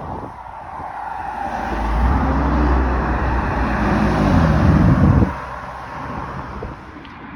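A sports car drives past, its engine note swelling and bending in pitch as it goes by. It is loudest about five seconds in, then drops away suddenly, over a steady background of road noise.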